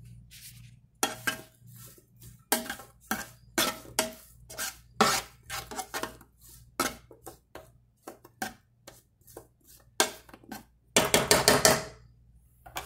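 A cooking utensil knocking and scraping against a frying pan while sliced sausage is stirred and pushed around, in irregular sharp clacks a few a second, ending in a quick burst of rapid clattering near the end.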